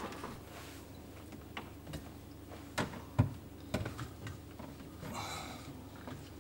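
A few scattered light knocks and clicks of plumbing parts and tools being handled, the loudest a little past three seconds in, with a short rustle around five seconds in.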